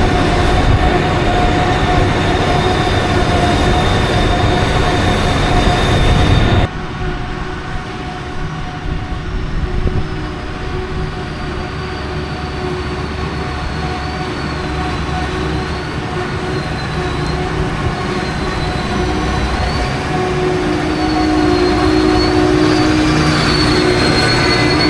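Heavy farm machinery running, a dense mechanical noise with steady whining tones. About seven seconds in it cuts abruptly to a somewhat quieter machine sound that slowly grows louder.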